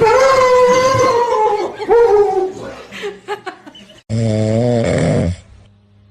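A loud, drawn-out high whine or wail that sags in pitch, followed by a few short yelps. About four seconds in comes a loud, buzzy snore about a second long.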